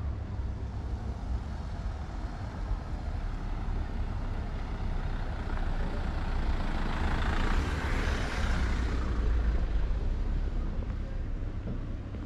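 A motor vehicle drives past on the street: its engine and tyre noise swell up over several seconds, peak a little past the middle and fade away, over a steady low traffic rumble.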